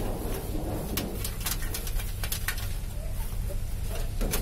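Tissue paper crinkling and rubbing as a hand wipes dust out of an open desktop PC case, giving many short scattered clicks, over a steady low rumble. A bird's low cooing call sounds in the background.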